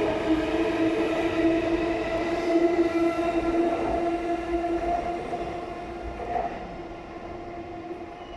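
Chuo Line E233-series electric train pulling out, a steady whine from its running gear over rail noise, fading as it moves away.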